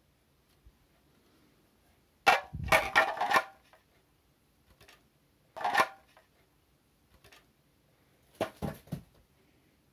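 Hard plastic slow-juicer parts knocking and clattering as they are handled, in three short bursts: about two seconds in, near the middle, and near the end.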